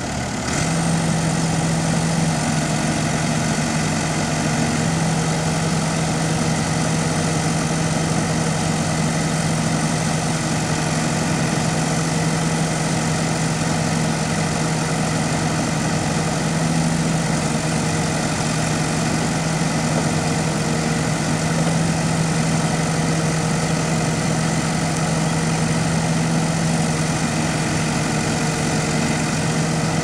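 2001 New Holland LB90 backhoe loader's diesel engine running, picking up speed about half a second in and then holding an even, steady drone while the backhoe boom is worked.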